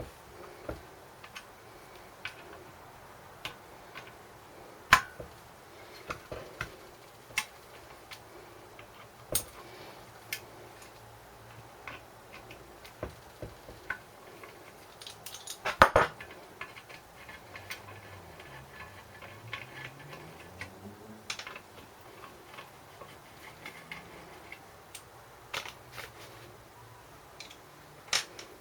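Scattered clicks and knocks of hand tools and metal parts being handled while a small Briggs & Stratton engine is taken apart, with a burst of rattling clanks about halfway through.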